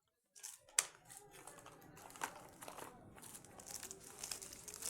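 Crinkling and rustling of a wrapper or packaging being handled, with irregular crackles and a sharp click about a second in.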